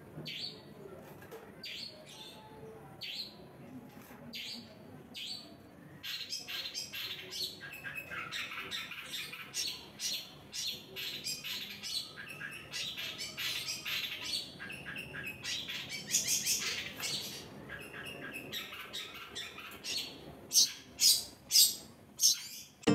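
Long-tailed shrike (cendet) calling in its cage: short sharp calls about once a second, then from about six seconds in a dense run of harsh chattering and squawking, with the loudest sharp calls near the end.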